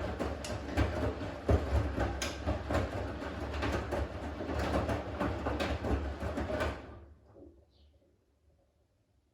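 Siemens front-loading washing machine in its main wash: the drum turns with the motor humming while wet laundry tumbles and water sloshes. About two-thirds of the way through, the drum stops and the sound dies away, the pause between drum turns in the wash rhythm.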